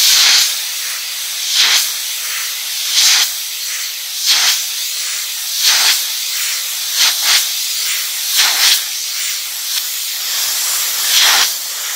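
Compressed air hissing steadily from a side-blowing air-gun wand worked inside a John Deere 8R tractor's cylindrical engine air filter element, blowing the dust out to clean it. The hiss swells louder about every second and a half and cuts off abruptly at the end.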